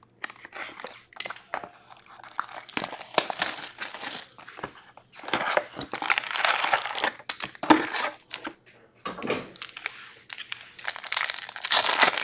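Plastic shrink-wrap on a cardboard hockey card box being slit with a box cutter and the box opened, with crinkling as the foil packs are handled. Near the end a foil card pack is torn open with a loud crinkling rip.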